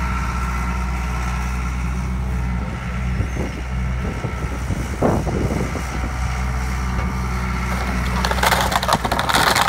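Skid steer engine running steadily as its grapple pushes on an old timber barn frame, with a single knock about five seconds in. Near the end the wooden frame starts cracking and splintering as it begins to give way.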